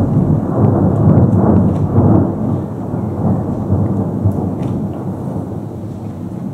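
Rolling thunder, a deep rumble that swells over the first two seconds and then slowly dies away, with rain falling.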